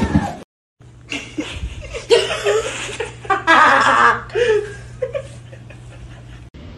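People laughing in uneven bursts, with a low steady hum underneath.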